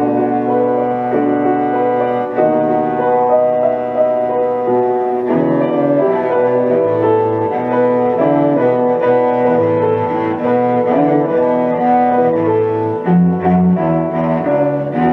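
Cello and piano playing a classical sonata together, the cello bowing long held notes over the piano.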